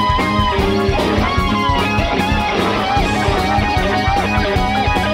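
A live band plays a funk groove, with an electric guitar soloing in bent, held notes over bass guitar and a steady drum beat.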